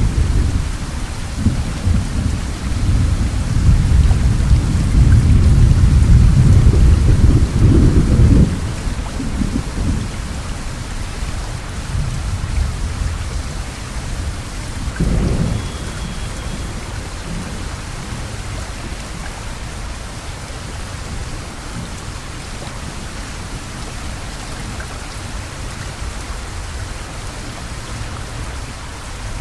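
Heavy rain falling steadily, with a loud deep rumble for the first eight seconds or so and a brief one about fifteen seconds in.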